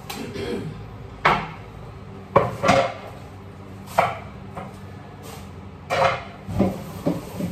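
Dishes and utensils knocking at a kitchen sink: about seven sharp clinks and knocks, spaced irregularly, the loudest two in quick succession about two and a half seconds in.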